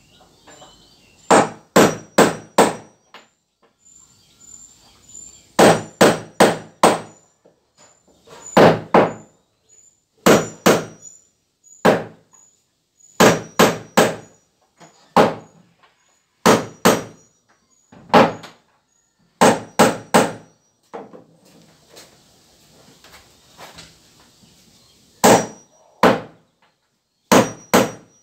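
Hand hammer nailing wooden floorboards onto a platform frame: sharp strikes in quick runs of two to five, with pauses of a second or more between runs.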